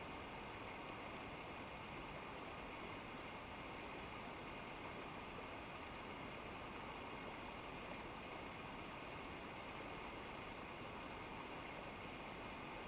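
Steady rush of a mountain river or waterfall, an even, unbroken wash of noise.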